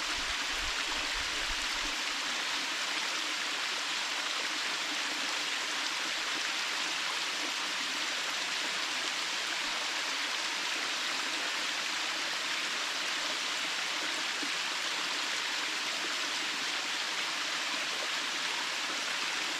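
Waterfall of many thin streams of water falling over rock, a steady even rush of splashing water.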